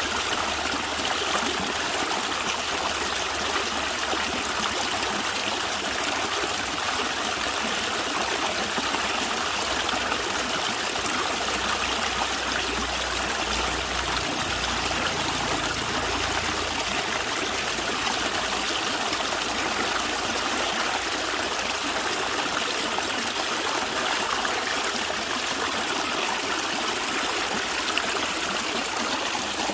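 Natural stream water running and gurgling steadily, with a brief low rumble about halfway through.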